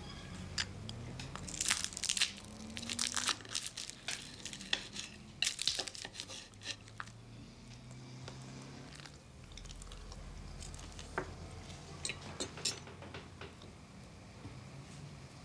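Knife and fork scraping and clinking on a dinner plate in short bursts, a few separate clusters of sharp scrapes and clicks over a faint low hum.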